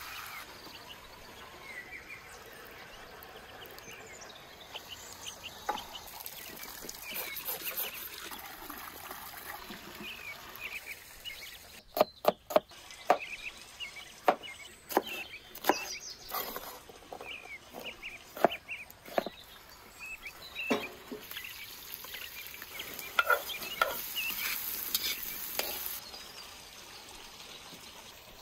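Cleaver chopping vegetables on a wooden cutting board: a run of sharp knocks in the middle, among quieter handling and kitchen sounds.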